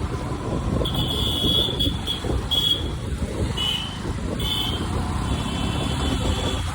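Traffic noise from riding on a motorbike: a steady rumble of engine and wind. Several short, high-pitched beeps sound between about one and five seconds in.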